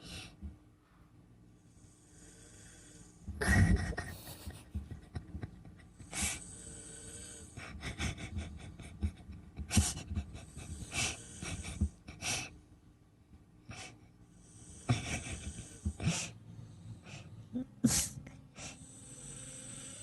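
A sleeping person snoring: a loud snort or rasping breath every few seconds, with hissing breaths between.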